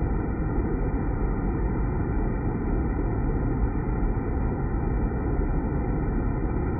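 Water spraying and splashing into the water standing inside a deaerator's steel vessel: a steady, low rushing noise.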